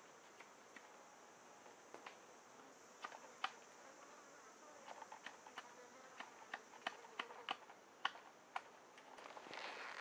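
Faint buzzing of flying insects over quiet forest ambience, with scattered small sharp clicks and cracks that come more often about halfway through.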